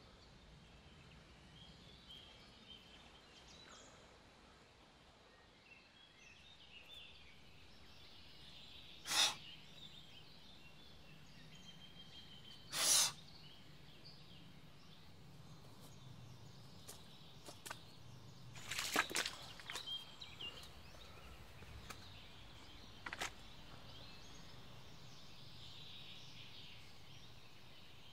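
Quiet woodland ambience with scattered bird chirps. It is broken by a handful of short, sharp cracks spread through the middle, two of them clearly louder than the rest.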